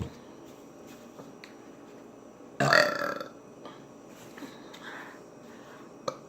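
A single loud burp, lasting about half a second, a little over two and a half seconds in.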